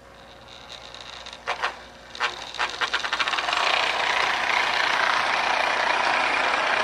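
Marx Commodore Vanderbilt toy electric train with a pre-war motor starting off and pulling a string of small passenger cars. A few clicks as it gets going, then from about three seconds in a steady rattle and whir of the wheels and cars on the track. It runs slowly and smoothly on freshly fitted motor brushes.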